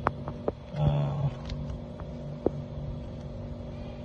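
Electric water pump running with a steady hum. A few sharp clicks come through near the start and around two seconds in.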